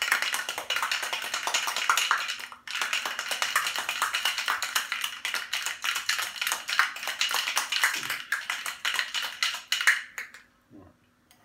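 Stainless steel cobbler cocktail shaker being shaken hard, ice cubes rattling rapidly inside against the metal. The rattle breaks off for a moment about two and a half seconds in, then carries on until it stops about ten seconds in.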